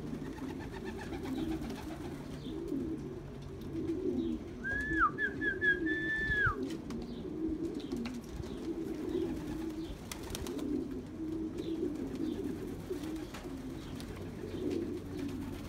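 Domestic racing pigeons cooing continuously. About five seconds in there is a short, high, whistled call with a few quick steps in pitch, the loudest moment.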